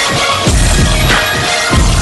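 Background music with a heavy bass beat.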